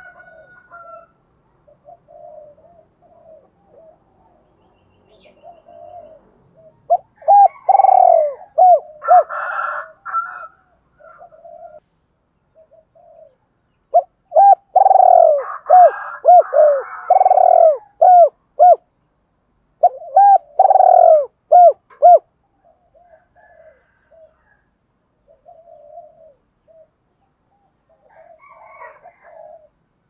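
Spotted dove cooing: soft, low coos at first, then three loud bouts of quick, repeated coos. This is the decoy bird's calling and urging song, used to draw wild spotted doves in.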